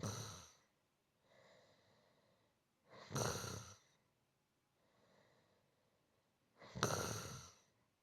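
A person snoring gently in a steady rhythm. Three louder snoring breaths come about three and a half seconds apart, with softer breaths between them.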